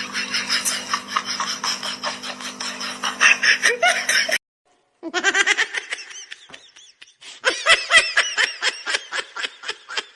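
People laughing in rapid fits of bursts, then a sudden cut about four and a half seconds in and more laughter with a rising and falling pitch.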